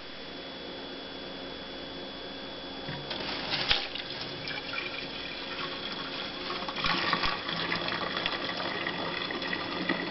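Hot wort poured from a saucepan into a glass Erlenmeyer flask, the liquid splashing into the flask. The pouring starts about three seconds in with a knock near four seconds, and grows louder from about seven seconds in.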